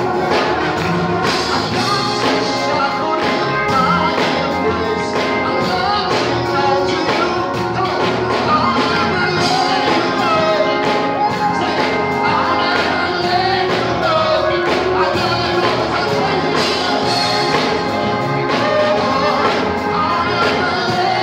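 A man singing through a microphone and sound system over instrumental accompaniment with a steady beat.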